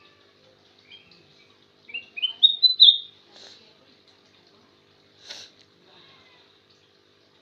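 Kutilang emas bulbul singing: a quick run of short whistled notes stepping upward in pitch about two seconds in, followed by two short, harsher chirps.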